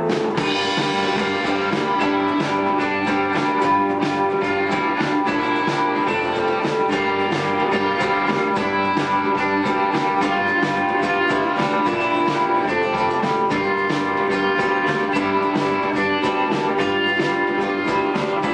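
Live band playing: electric guitar with acoustic guitar over a steady drum beat, the full band coming in right at the start.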